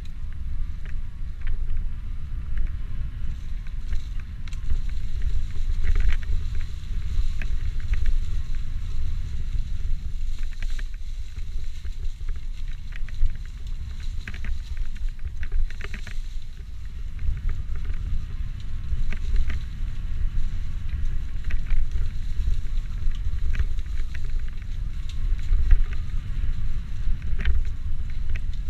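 Electric mountain bike ride on a rough trail: wind rumbling on the camera microphone, with frequent short rattles and clicks from the bike and tyres over the ground.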